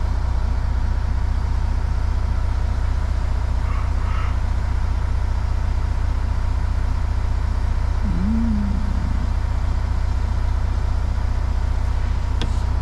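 Simulated truck engine in a trucking video game idling steadily as a low drone, with a short murmur from a voice about eight seconds in.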